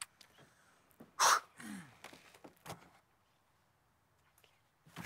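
A person's sharp breathy exclamation about a second in, followed by a short vocal sound falling in pitch, then near silence with a few faint clicks.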